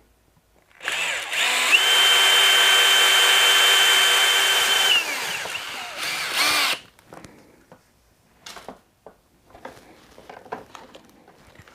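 Power drill boring a hole through a plastic motorcycle saddlebag panel. About a second in, the motor spins up to a steady whine, holds for about three seconds, then winds down. A few light clicks of handling follow.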